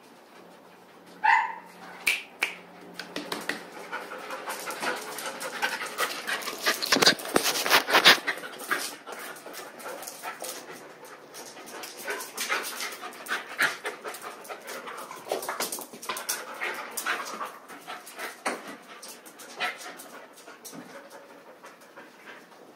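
Dogs panting on and off, with a short rising whine about a second in and many scattered clicks and knocks, thickest around the middle.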